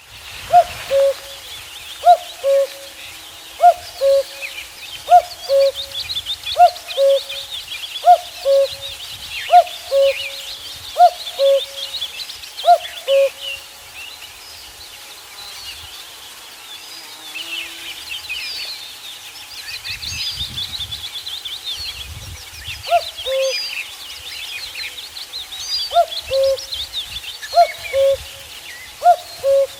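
Male common cuckoo singing its two-note falling "cuck-oo" about every one and a half seconds. It breaks off about halfway through for roughly ten seconds, then starts again. Smaller songbirds twitter constantly behind it.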